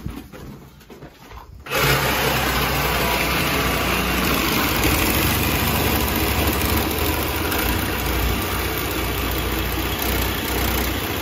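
Handheld power saw cutting through a steel boiler pipe. It starts about two seconds in and runs as a steady, harsh buzz.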